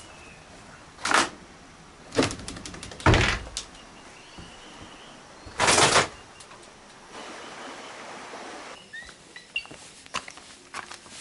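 Several loud wooden thumps and knocks, about a second in, around two and three seconds in, and again near six seconds, as someone moves through a small wooden hut with a door, followed by lighter scattered clicks.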